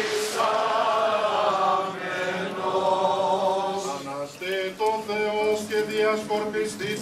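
Byzantine-style Orthodox Easter chant sung in unison by many voices, one melody moving stepwise in long held notes.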